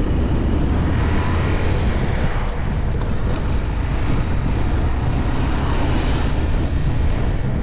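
Motorcycle engine running as the bike pulls away and rides along, rising in pitch as it accelerates in the first couple of seconds, over a steady low rumble.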